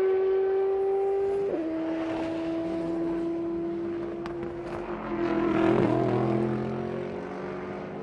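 Race car engine at high revs accelerating down a straight, with one upshift about a second and a half in where the pitch drops and then climbs again. The car passes close, loudest around six seconds in, and fades away.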